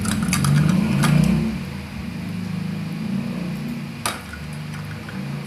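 A few sharp clicks and taps, the clearest about a second in and another about four seconds in, fitting a flashing light-up toy ball batted against the wire bars of a pet cage. Under them runs a steady low hum, loudest in the first second and a half.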